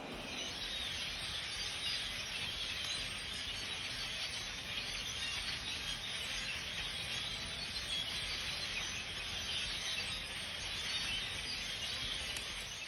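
Steady outdoor background noise: an even high hiss with no distinct events.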